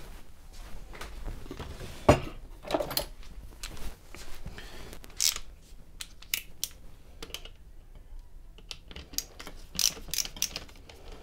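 Small plastic clicks and knocks as the electrical supply box of a boiler circulator pump is handled and opened, with one sharper knock about two seconds in.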